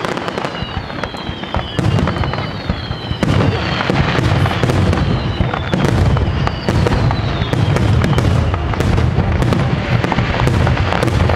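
Rapid starmine barrage of aerial firework shells: dense overlapping bangs and crackles over a continuous rumble, growing fuller about two seconds in. Several high falling whistles sound among the bursts.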